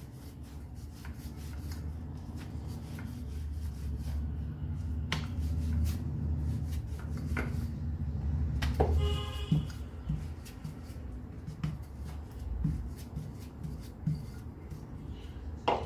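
Wooden rolling pin rolling out a stuffed paratha on a round rolling board: a steady low rumble with light clicks and taps as it goes back and forth. A short pitched sound cuts in about nine seconds in.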